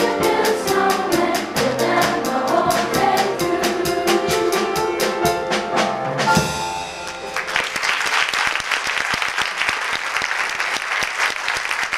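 Children's swing choir singing over accompaniment with a steady drum beat, ending on a final chord about six seconds in. Applause follows and carries on.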